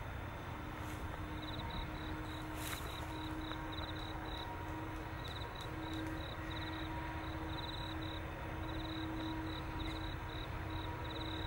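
Insects in dry grass chirping in short, rapid, high trills that come and go, over a steady faint hum and low rumble.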